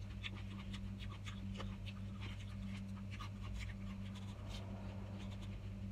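Close-up chewing of raw salad vegetables, a string of short, crisp crunches and mouth clicks, over a steady low hum.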